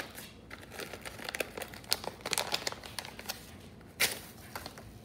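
Paperboard box of seed packets being opened and handled by hand: crinkling and scattered small clicks of paper and card, with a louder crackle about four seconds in.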